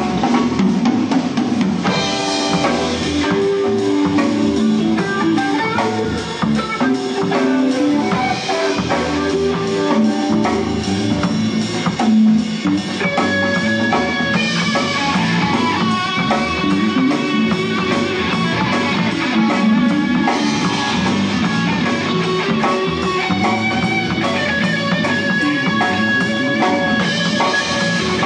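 Rock music: electric guitar playing over a drum kit.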